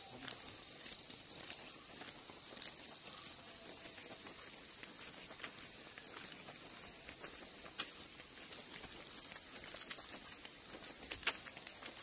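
Outdoor ambience of a wet forest road: a steady hiss with scattered light ticks and pats at no regular pace, which could be footsteps or water dripping.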